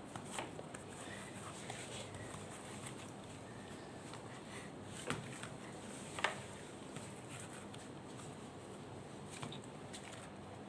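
Quiet steady hiss with a few soft taps and clicks of slime and clay being handled in a plastic container, the clearest about five and six seconds in.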